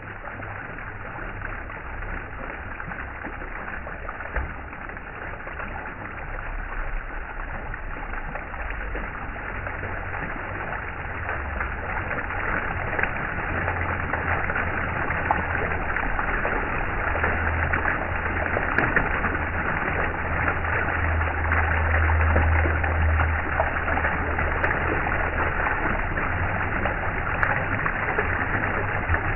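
Steady rush of running water, like a stream, with a low rumble underneath, growing gradually louder.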